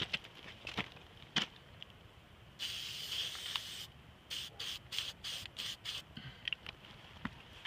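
Aerosol spray can hissing onto a steel rail: one long spray of just over a second, then a quick run of short spurts, about five a second. A few sharp clicks come first.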